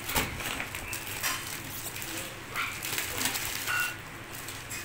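Thin plastic packaging crinkling and rustling in irregular bursts as hands pull at and peel open a plastic-wrapped garment.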